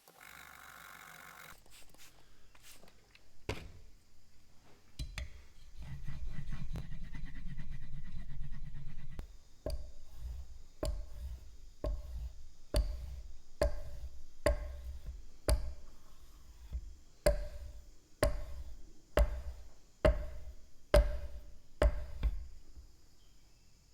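Mallet or hammer blows on wood, struck in a steady run of about one a second, each a sharp knock with a short ring. A few scattered knocks and a short stretch of steady low machine noise come first.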